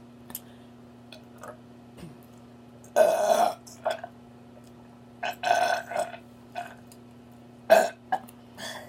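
A string of loud burps brought up by drinking carbonated Pepsi, the longest about three seconds in, another a couple of seconds later, and a short sharp one near the end.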